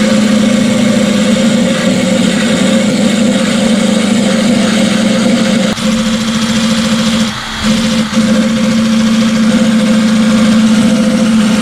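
Cordless drill running a wire brush against a rusted car sill, stripping rust and underbody coating: a steady, loud motor whine that eases off briefly about six seconds in and again around seven and a half seconds in.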